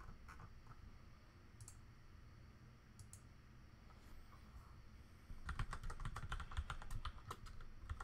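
Computer keyboard typing: a quick run of keystrokes from about five seconds in. Before it come a few separate clicks.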